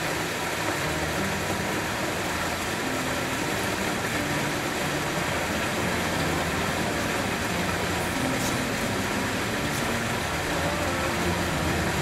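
Water from a two-tier natural rock waterfall pouring in sheets and splashing into a swimming pool: a steady rushing splash.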